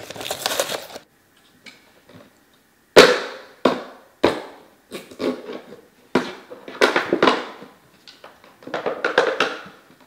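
Stiff packaging of a new coaxial TV antenna cable being forced open by hand: a string of sudden, sharp crunches and rustles, each dying away quickly, after a short lull near the start. The loudest comes about three seconds in. The box is hard to open.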